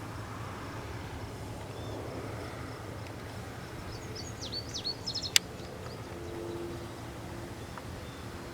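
Steady low engine hum of harvest machinery, heard at a distance, with a bird chirping a quick run of notes about four seconds in, followed by a single sharp click.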